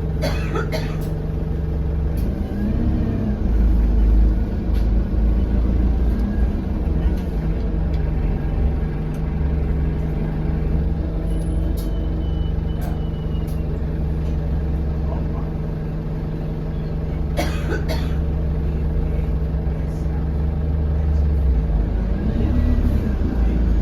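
Alexander Dennis Enviro200 bus's diesel engine running under way, heard from inside the saloon: a steady drone, with the revs briefly rising and falling about three seconds in and again near the end, and a couple of sharp rattles from the body. The uploader says this bus has a turbo leak and a turbo whistle.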